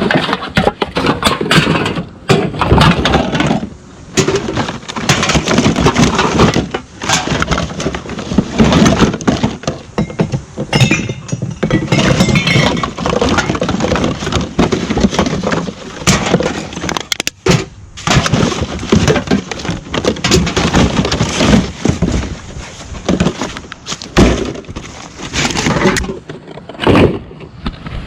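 Hard objects clattering and clinking almost without pause, with many sharp knocks, as scrap and junk items are rummaged through and tossed about.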